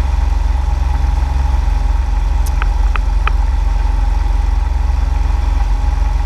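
Kawasaki Vulcan Mean Streak's V-twin engine running steadily under a low rumble while the motorcycle cruises at about 60 km/h. Three short high chirps come about a third of a second apart near the middle.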